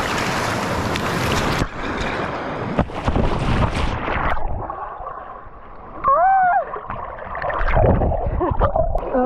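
Rushing river water and splashing close to the microphone, loudest for the first four seconds. A short high vocal cry rises and falls about six seconds in.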